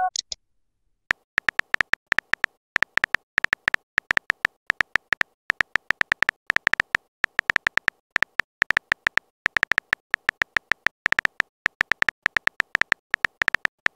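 A texting app's keyboard tap sounds: a quick, irregular run of short clicks, about six to eight a second, with brief pauses, as a message is typed out letter by letter. Right at the start there is the tail of a short high chirp.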